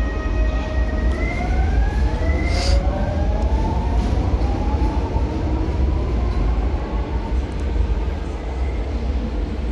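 Renfe Civia electric multiple unit pulling out of an underground station, its traction motors whining in several tones that rise slowly in pitch as it accelerates away, over a steady low rumble. A brief hiss about two and a half seconds in.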